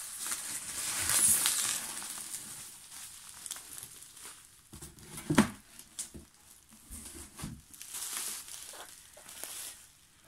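Bubble wrap and packaging crinkling and rustling as a wrapped package is handled, with a sharp knock about five seconds in.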